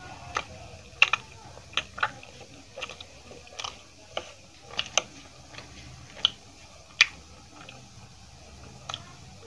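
Close-up chewing of aloo paratha: wet mouth clicks and smacks, sharp and irregular, one or two a second.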